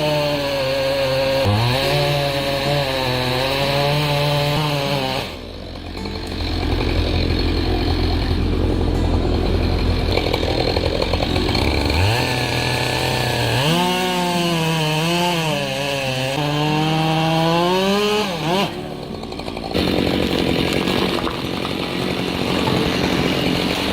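Petrol chainsaw running at high revs and cutting wood, its engine pitch rising and dipping under load. The sound breaks off abruptly about five seconds in and again near nineteen seconds, each time going on with a new stretch of sawing.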